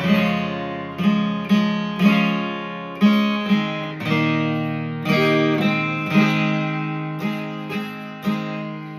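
Cutaway acoustic guitar being strummed: a chord struck every half second to a second, each left ringing and fading until the next stroke.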